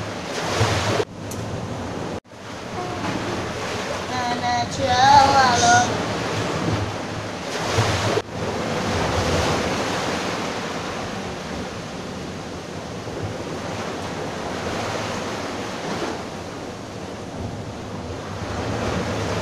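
Small sea waves washing up over wet sand, a steady hiss of surf. The sound breaks off abruptly about one, two and eight seconds in, and a brief wavering high-pitched call rises over the surf around five seconds in.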